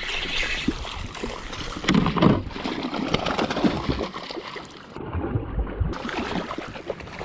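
Water sloshing and splashing around a fishing kayak, with scattered knocks and clatter, loudest about two seconds in.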